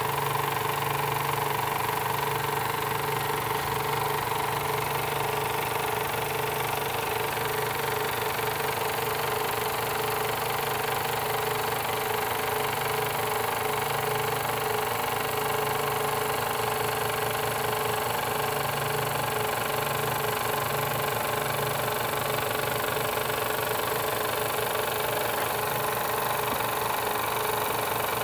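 Twin Jensen #35 toy steam engines running together on one shared electric-fired boiler plant, a steady, fast, even mechanical whir and chuff with a few held tones, unchanging throughout.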